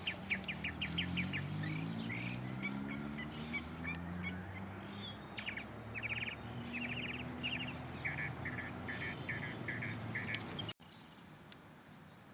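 Songbirds calling in quick series of short chips and trills, over a low droning hum. It all cuts off abruptly near the end, leaving a quieter background.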